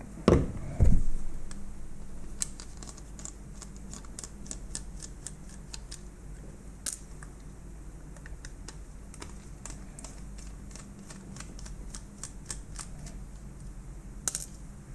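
Screwdriver clicking and tapping as screws are backed out of a plastic housing, with scattered small irregular clicks. Two heavier knocks in the first second as the housing is handled.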